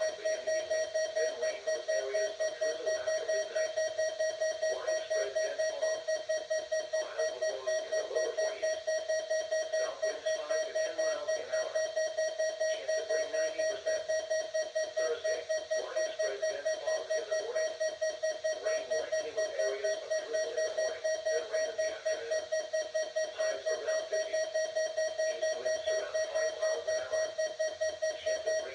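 Midland WR-100 weather alert radio sounding its alert tone: fast, evenly repeated beeps at a single pitch, going on without a break. It is the signal that the radio has received an emergency alert.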